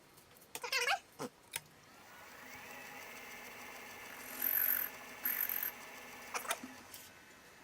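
Clinks and knocks of handled metal parts, then a small electric motor spins up, rising in pitch, and runs steadily, with two short louder bursts over it about halfway through.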